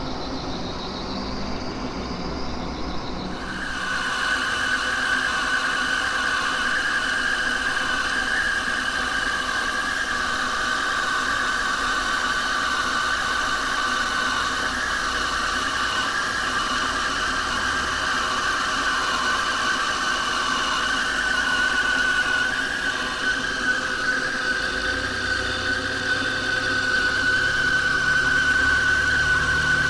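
American Pacemaker engine lathe turning a gearbox shaft. The machine runs with a low hum, and about three seconds in the roughing cut starts, adding a steady high-pitched whine from the tool cutting the steel.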